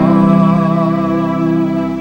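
Organ holding sustained chords, with one wavering upper line, tapering off near the end.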